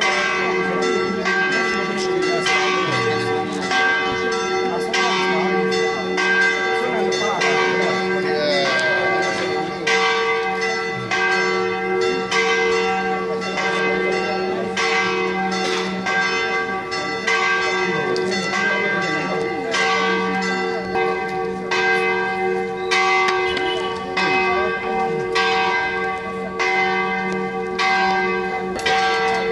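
Church bells ringing a quick, even run of strokes, their tones humming on steadily between strikes.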